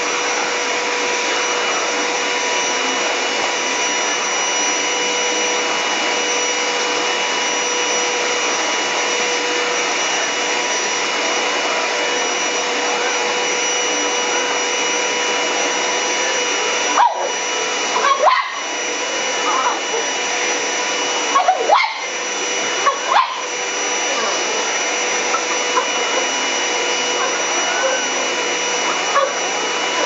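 Upright vacuum cleaner running on carpet, a steady motor whine. A few short, loud sounds break in about halfway through, with the motor sound dipping briefly around them.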